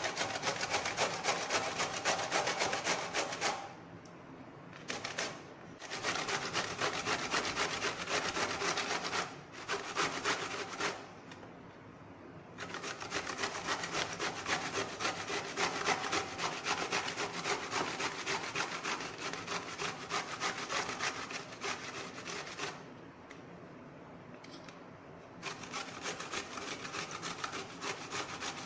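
Bottle gourd being grated by hand on a metal box grater: quick rasping strokes in long runs, stopping briefly three times.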